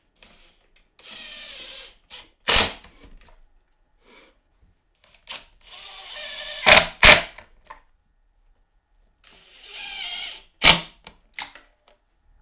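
Makita 18V cordless driver driving three screws into plywood, one after another. Each screw gets a second or so of steady motor whine, then a loud short burst as it seats; the second one ends with two bursts.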